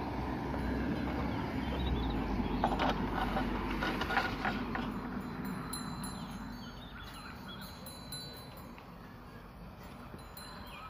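Small bells on a bull's decorated neck collar jingling in scattered clusters as the bull shifts and tosses its head, most busily a few seconds in, over a low rumble that fades after the first half.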